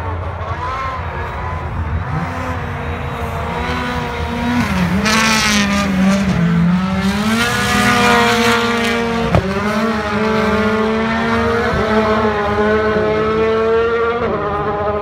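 Rally cars' turbocharged four-cylinder engines revving hard as they slide past on snow, pitch rising and falling, louder from about four seconds in. A single sharp crack comes about nine seconds in.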